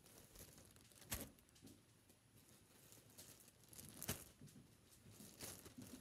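Faint crinkling and rustling of food packaging being handled and opened, with a few sharp crackles, one about a second in, one around four seconds and one shortly before the end.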